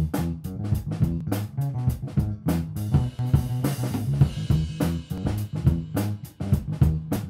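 Backing music: a rock track with a steady drum-kit beat, bass and guitar.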